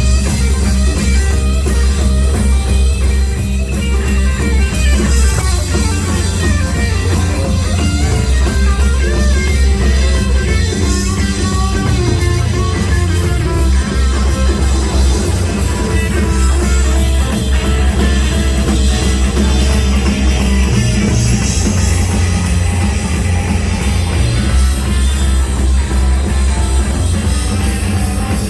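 Live blues-rock band playing, with electric guitar lines over bass and drum kit.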